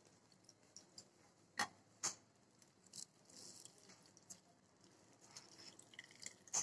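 Faint handling of a wet muslin cloth full of chhena being gathered and twisted by hand, with scattered soft clicks and taps, the two loudest about a second and a half and two seconds in.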